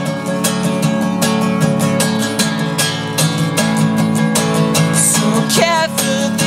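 Acoustic guitar strummed in a steady, even rhythm between vocal lines. A short sung phrase comes in near the end.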